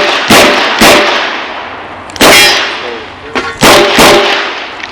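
Five revolver shots from a Chiappa Rhino .38 Special, fired in uneven pairs and singles with pauses between them during a timed IDPA stage. Each shot is a sharp crack with a short ringing tail.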